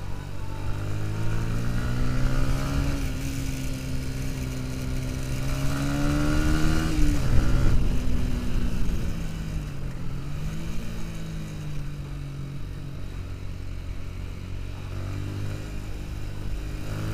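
Sport motorcycle engine heard from the rider's seat, its pitch climbing for several seconds as it accelerates, then falling sharply about seven seconds in and running at a lower, steadier pitch with a brief dip near ten seconds. Wind rushes over the microphone, loudest at the top of the acceleration.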